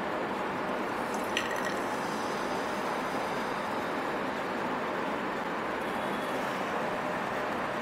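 Steady fizzing hiss from a baking soda and vinegar reaction in a glass conical flask, as the carbon dioxide foam builds and rises while vinegar is poured in. A faint click comes about a second and a half in.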